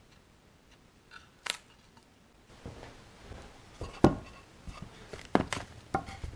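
Wooden cutting boards handled on a workbench: a click, then a light rustle with several sharp knocks as a heavy board is moved and set down.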